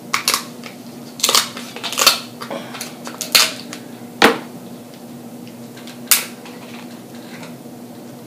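King crab leg shell cracking and snapping as it is broken open by hand, a string of sharp cracks with the loudest about four seconds in and one last snap around six seconds in, over a faint steady hum.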